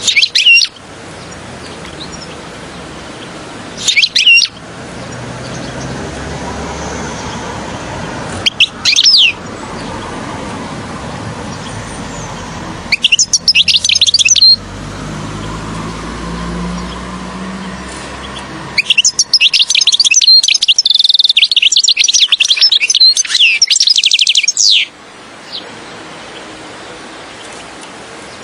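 European goldfinch singing: short twittering phrases every few seconds, then a longer, dense run of song lasting about six seconds in the second half, over a steady low background noise.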